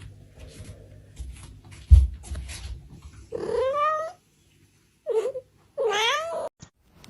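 A cat meowing three times, two long drawn-out calls with a short one between. Before the calls come scattered knocks and one sharp thump.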